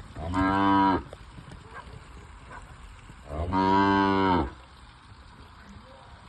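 Young heifers mooing: two loud moos about three seconds apart, the second one longer.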